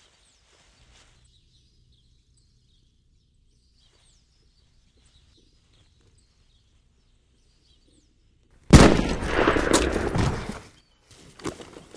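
A sudden loud sniper's rifle shot about three quarters of the way in, its sound carrying on for about two seconds before dying away. Before it the woods are nearly silent apart from faint bird chirps.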